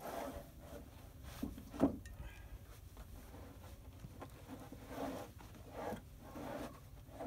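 Milled wooden boards being shifted by hand on a wooden pallet: soft scrapes and a few light knocks of wood on wood, the sharpest knock about two seconds in.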